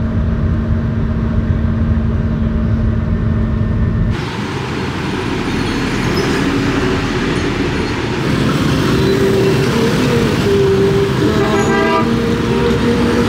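Road vehicle and traffic noise: a heavy low rumble with a steady hum, changing abruptly about four seconds in to broader traffic noise. A vehicle horn sounds in long tones through the second half.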